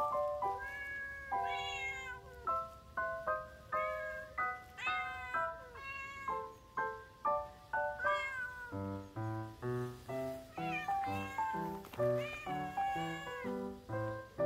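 Cats meowing several times over background music. The music is a run of short, evenly paced pitched notes, and a bass line comes in about nine seconds in.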